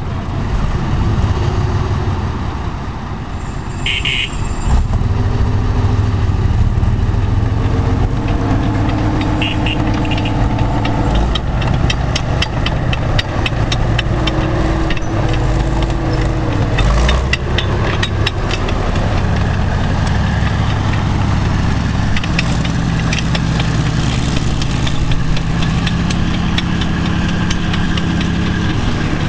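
T-34-85 tank's V-2 diesel V12 engine running under way, its pitch rising and falling as the tank drives and turns, with rapid clanking of the steel tracks through the middle and later part.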